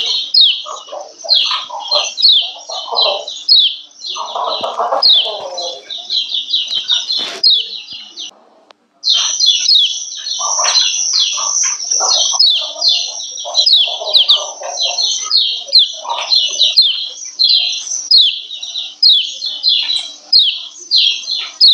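Female kecial kuning (yellow white-eye) giving rapid, repeated 'ciak ciak' chip calls: short high notes that each sweep downward, several a second, the calls used to rouse kept males into breeding condition and steady singing. Lower-pitched calls chatter underneath, and the calling breaks off for under a second about eight seconds in.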